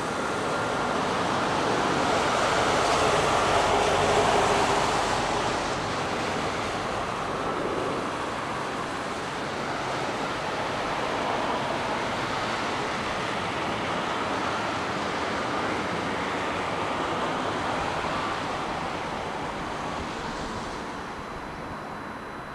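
Jet engine noise of a Boeing 787-8 Dreamliner during its landing roll-out on a wet runway. It is a steady rush that swells to its loudest a few seconds in, then slowly fades as the airliner slows and moves away.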